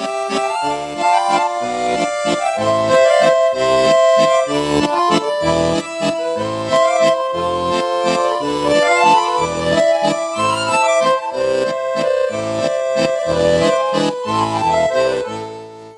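Accordion music: a lively melody played over a rhythmic bass accompaniment, dropping away just before the end.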